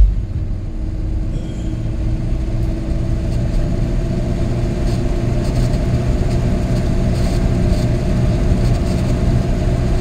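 Vehicle driving along a paved road at steady speed: a continuous low engine and road rumble with a steady hum over it.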